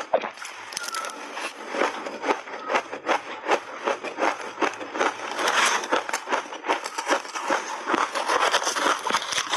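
Shaved ice coated in milk powder being bitten and chewed close to the mouth: a rapid, dense run of crackling crunches.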